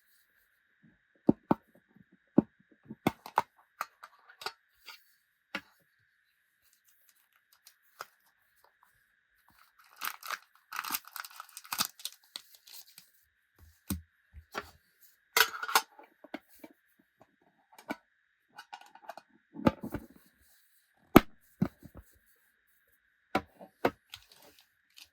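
Trading-card packets being handled and opened by hand: scattered sharp clicks and taps, with a stretch of tearing and crinkling of the packet wrapper from about ten seconds in and again a few seconds later. A faint steady high whine runs underneath.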